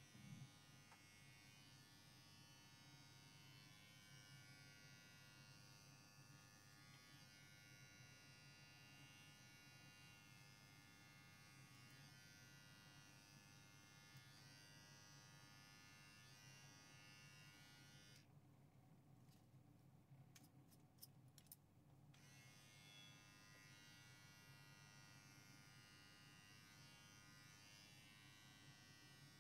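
Faint, steady buzz of electric pet hair clippers running. The higher part of the buzz drops away for a few seconds past the middle, with a few faint clicks.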